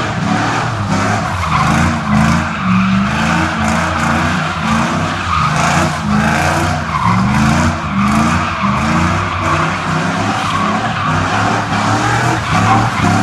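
Pickup truck doing a burnout in circles: the engine is held at high revs, its pitch rising and falling over and over, while the rear tyres squeal continuously on the pavement as they spin.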